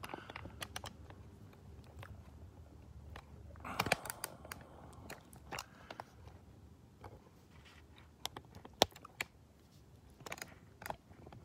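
Faint, irregular clicks and taps, with a brief louder rustle about four seconds in and one sharper click near nine seconds.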